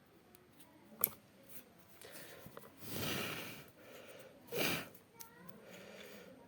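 A person's sharp breaths out through the nose, twice, with a single sharp click about a second in.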